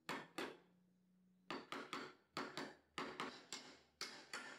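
Ball-peen hammer tapping on a large steel socket used as a driver, seating a new seal over a freshly packed bearing. Two taps, a pause of about a second, then light steady taps about four a second, each with a short metallic ring.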